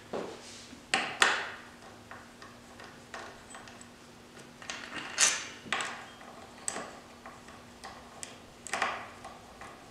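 Irregular metallic clinks and taps as loosened T45 Torx bolts are worked out of a VW six-speed manual transmission case by hand and set down, the loudest about a second in and again about five seconds in.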